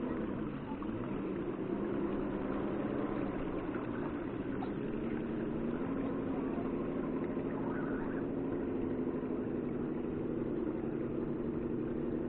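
A steady motor hum made of several low tones. It dips in pitch briefly just after the start and rises a little about halfway through.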